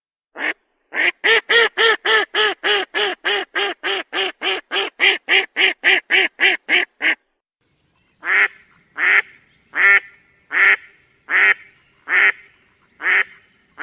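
Duck quacking: a fast run of about two dozen quacks at roughly four a second, then after a short pause a slower series of single quacks, about one every three quarters of a second.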